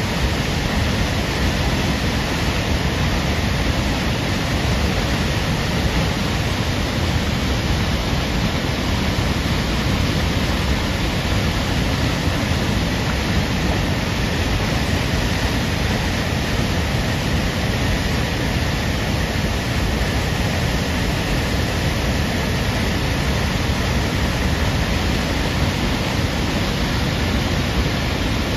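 Tahquamenon Upper Falls pouring over its brink, heard close up: a steady, unbroken rush of falling water that does not change.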